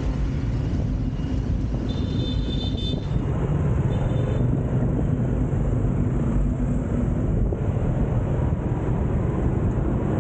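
Steady city street traffic noise heard from a moving bicycle, with a heavy low rumble.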